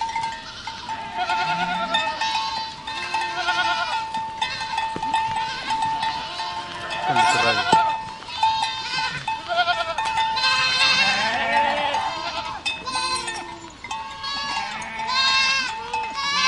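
A herd of goats bleating, many wavering calls overlapping one another, with a steady high tone sounding beneath them.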